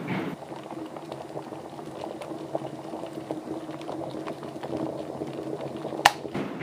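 Liquid bubbling irregularly over a steady low hum, with one sharp click about six seconds in.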